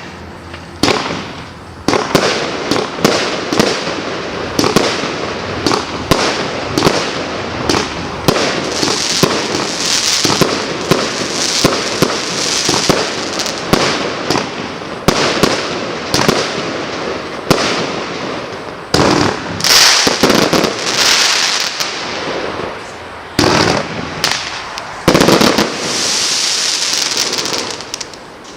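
Klasek 'King of Fireworks' firework cake firing a rapid, continuous string of shots with bursts of crackle. The loudest volley comes near the end, then the firing stops.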